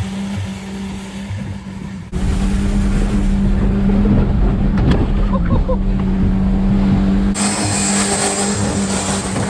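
1997 Ford Ranger pickup's engine running hard at steady revs as the truck is driven fast through mud, spraying dirt. For a few seconds in the middle it is heard from inside the cab, with a heavier low rumble.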